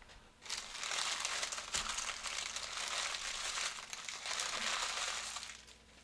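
Foil trading-card pack wrappers crinkling and crumpling in the hands, a dense crackle that stops shortly before the end, with a small knock about two seconds in.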